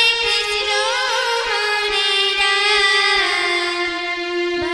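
A girl singing a Bengali kirtan, a devotional song, in a wavering, ornamented line over a steady held accompaniment note.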